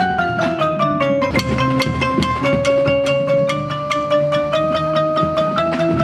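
Marimbas and other mallet percussion playing a quick, even stream of struck notes. The melody steps downward in the first second, then holds and edges slowly upward.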